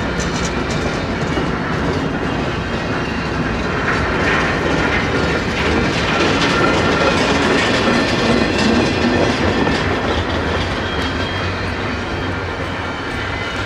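Intermodal freight cars of a slow-moving train rolling past close by, steel wheels running on the rails with a loud, steady noise.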